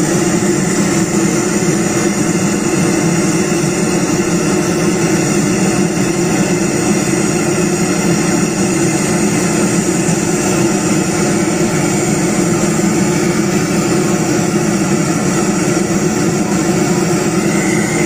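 Large stacked SPL Audio speaker system sounding a loud, steady, unchanging drone-like noise with no beat.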